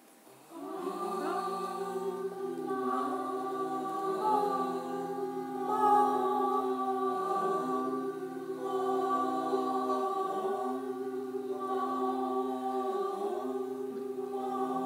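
The healing sound 'amma' chanted on long, steady held notes, with short breaks about every three seconds.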